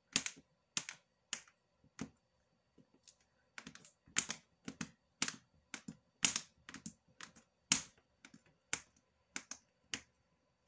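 A long, thin clay blade chopping a slab of polymer clay, each downward cut ending in a sharp click as the blade strikes the work surface. The clicks come irregularly, about two a second.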